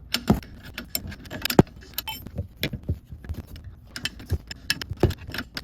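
Metal bicycle pedal being threaded into the crank arm and tightened with the supplied wrench: irregular metal clicks and clinks of tool and pedal, one sharper clank about a second and a half in.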